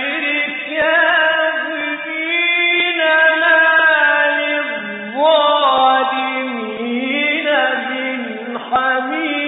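A man's voice in melodic Quran recitation (tajwid), holding long ornamented notes that glide between pitches, with a short breath pause about halfway through. It is a narrow-band, dull-toned recording.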